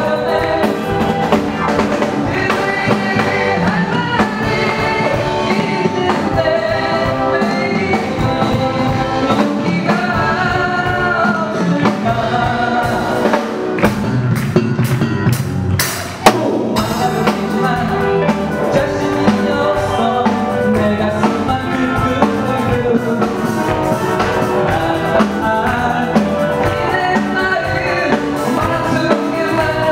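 Live band with drum kit and keyboards playing an upbeat Korean pop-rock song, a man singing into a handheld microphone. A brief dip and a sharp click about halfway through.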